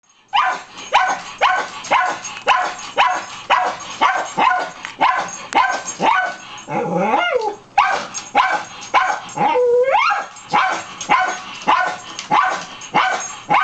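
Small long-haired dog barking repeatedly, about two sharp barks a second, at someone hiding in a closet. Twice, around the middle, the barking breaks into a longer whine that rises and falls in pitch.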